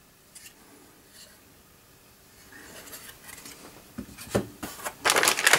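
Handling of computer parts: a PCI sound card being put down in a cardboard box among anti-static plastic, with soft rustling, a couple of light clicks about four seconds in, and louder rustling near the end.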